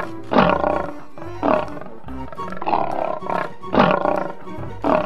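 Tiger roaring several times, each call falling in pitch, over background music.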